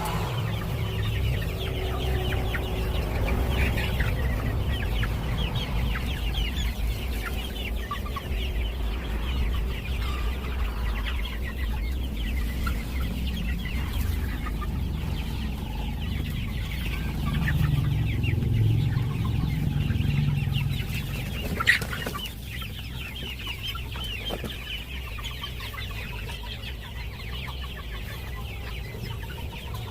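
A flock of young Kaveri chickens clucking and peeping continuously over a low steady rumble, with one sharp knock about two-thirds of the way through.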